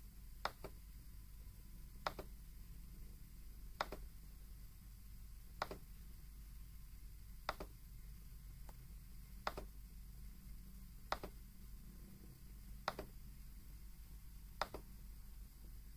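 Sharp clicks repeating evenly about every two seconds, nine in all, each often followed at once by a softer second tick, over a low steady hum.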